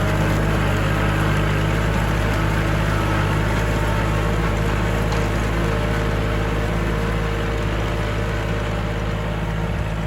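A farm tractor's engine running steadily while ploughing a rice field.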